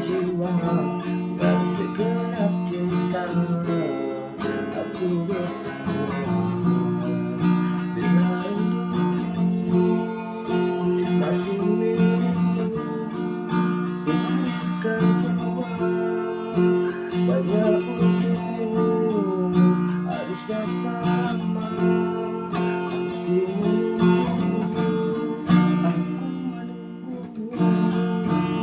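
Instrumental music led by acoustic guitar, plucked and strummed, playing steadily throughout.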